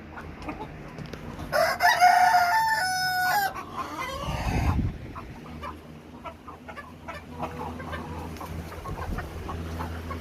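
A rooster crows once, loudly, about a second and a half in, for about two seconds. Hens cluck softly around it, and a low thump follows shortly after the crow.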